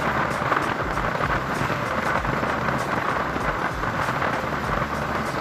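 Steady road and wind noise of a moving vehicle, heard through an open side window: an even rushing hiss over a low rumble.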